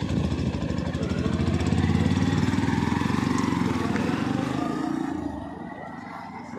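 Motorcycle engine running close by with a fast, even pulse, a little louder around two seconds in, then fading away after about five seconds.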